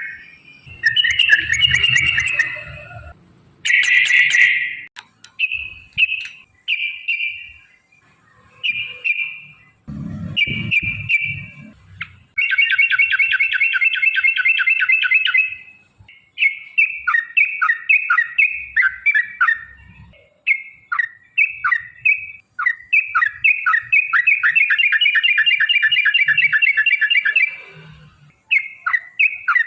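Yellow-vented bulbul (trucukan) singing: repeated short bubbling chirps with two long, fast rattling trills, one about twelve seconds in and one about twenty-four seconds in. A few dull low thumps come about ten seconds in.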